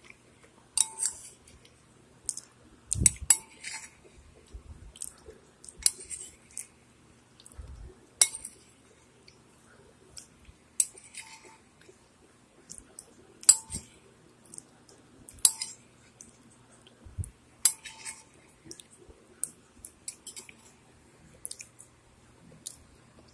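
Metal spoon clinking against a ceramic soup bowl as soup is scooped: sharp clinks every two to three seconds, some with a short ring.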